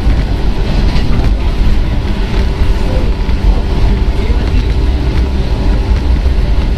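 Interior running sound of a JR 115-series electric train, heard from inside motor car MoHa 114: a steady, loud rumble of wheels and running gear on the rails, with a faint steady hum over it.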